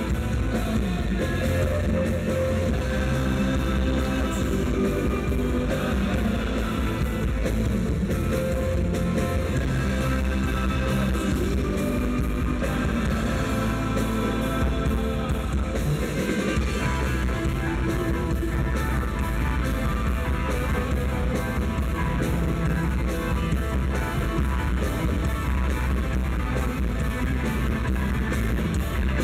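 Live rock band playing a song: electric bass and electric guitar over drums with steady cymbal strokes, and a male lead singer's voice.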